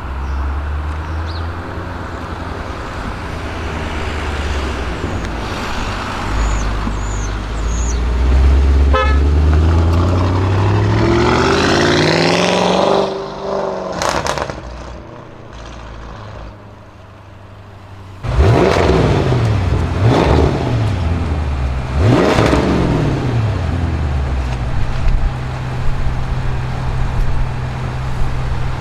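Audi RS6 Avant C7's twin-turbo V8 with a Milltek exhaust accelerating, its pitch climbing for several seconds before cutting off, with a single sharp bang soon after. After a quieter stretch the engine is blipped three times in quick succession and settles to a steady idle.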